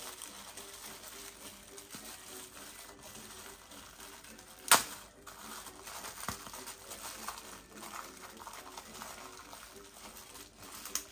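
Rustling and crinkling of wrapping as wrapped jewelry pieces are unpacked and handled, with one sharp tap about halfway through.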